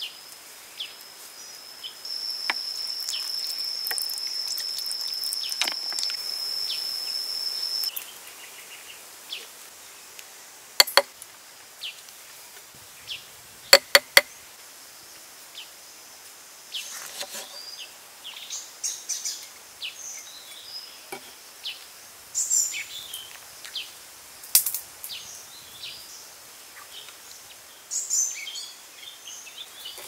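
Outdoor ambience with a steady high-pitched insect buzz for about six seconds near the start. A few sharp knocks from kitchen utensils on the board and stone mortar come in the middle, and scattered bird chirps and small clicks fill the second half.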